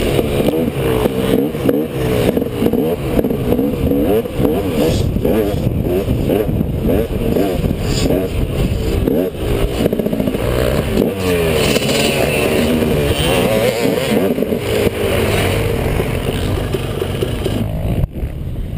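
Motocross bike engine heard close up from a helmet camera, revving hard and easing off over and over as the rider accelerates and shifts along the dirt track, the pitch rising and falling repeatedly. The engine sound drops suddenly near the end.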